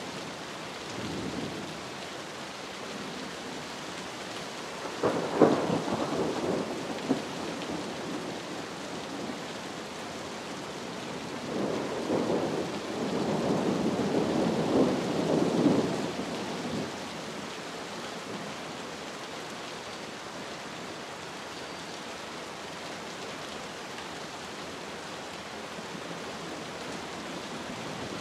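Steady rain falling, with thunder rolling twice: a sharp clap about five seconds in that rumbles off over a couple of seconds, then a longer, swelling rumble from about twelve to seventeen seconds.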